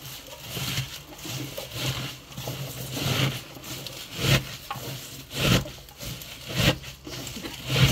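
Hands squeezing and kneading salted wild garlic shoots in a stainless steel sink. Each squeeze makes a rustling, scraping surge, a little more than a second apart, as the salt works the juice out of the leaves before fermenting.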